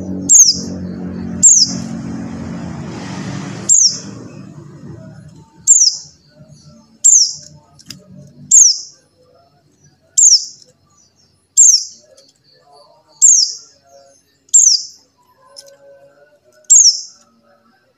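Buxtoni white-eye (pleci) female call: a short, high, thin chirp sliding downward, repeated about every second and a half. Under the first few seconds a low humming layer fades out.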